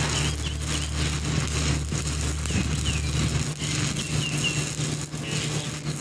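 Shielded metal arc (stick) welding: the electrode's arc crackling and sizzling steadily, over a low hum that drops away about halfway through.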